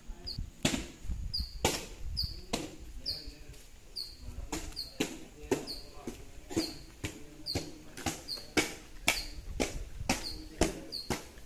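Footsteps on wet stone paving, about two a second. A small bird chirps over and over in a short, even rhythm behind them.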